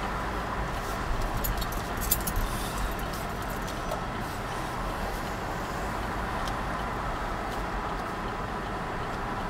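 Steady engine and road hum inside a car's cabin while the car moves slowly, with a cluster of light clicks about one to three seconds in.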